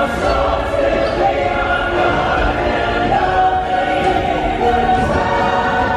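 Theme-park ride soundtrack music with a choir singing long held notes.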